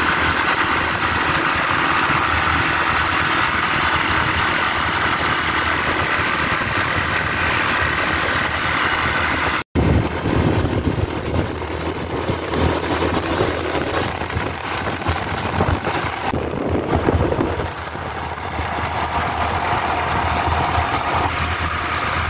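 Hero XPulse 200 single-cylinder motorcycle engine running on the move, under a steady rushing noise. The sound breaks off for an instant about ten seconds in, then carries on a little more uneven.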